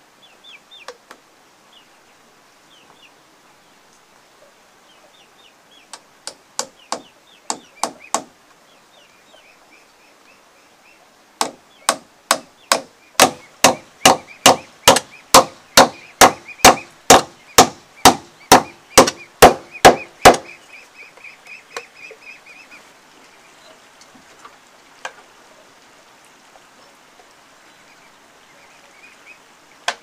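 Hammer blows on a wooden post: a few blows about six seconds in, then a steady run of about two dozen loud blows, roughly three a second, that stops about twenty seconds in.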